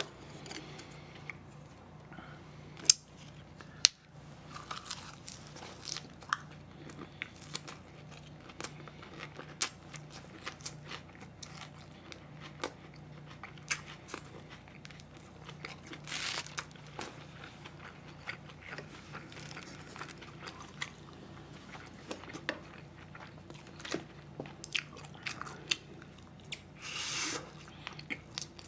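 A man chewing and biting food close to the microphone: wet mouth clicks and smacks, with a few sharper clicks in the first few seconds, over a faint steady hum.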